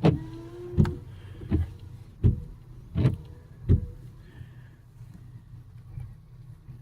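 Six evenly spaced clicks about three-quarters of a second apart from the minivan's cabin controls, over a low steady hum; the clicks stop about four seconds in.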